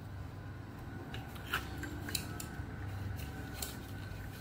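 A few light clicks and rattles from handling the inside of a rotary telephone: wires being tucked into the chassis and the metal rotary dial assembly lifted and moved.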